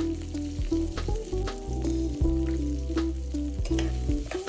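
Potato cubes sizzling in hot oil in a nonstick pot while a spatula stirs them, scraping and knocking against the pot several times. Soft background music with steady low notes plays underneath.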